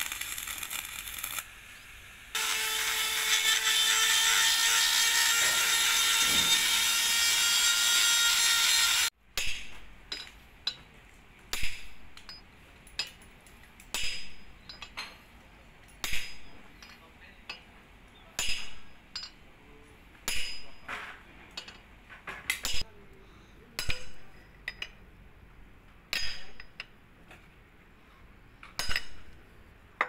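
Stick arc welding on a Komatsu D85SS bulldozer track frame: a steady crackling sizzle starting about two seconds in and running for about seven seconds. After it cuts off, sharp metal clinks and knocks come every second or two as steel bars and a wrench are worked in the track frame's bore.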